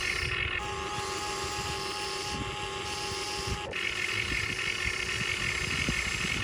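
Radio-controlled excavator's small electric motors whining steadily. One tone cuts in about half a second in and stops with a click just before four seconds, with scattered small knocks.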